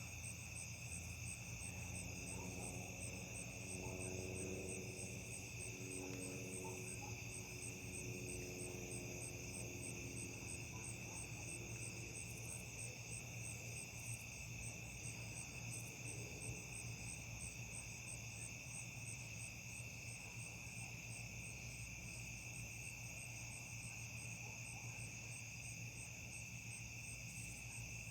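A steady night chorus of crickets and other insects, several overlapping high trills at once, one of them pulsing quickly and evenly. A faint low droning tone rises and fades in the first ten seconds or so.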